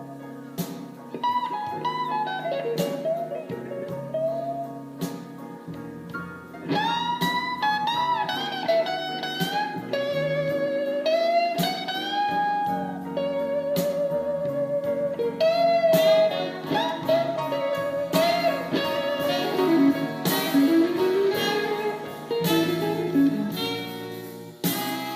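Blues recording played back through a Mitsubishi DA-U12 hi-fi amplifier: a lead guitar plays bent, wavering notes over a backing band.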